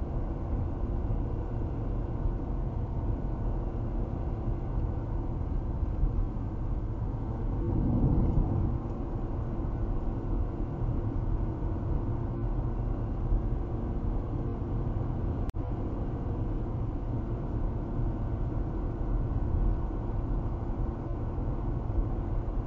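Steady road and tyre noise with engine hum inside a car's cabin, cruising at about 60 mph on a highway. A low rumble swells briefly about eight seconds in, and the sound cuts out for an instant a little past halfway.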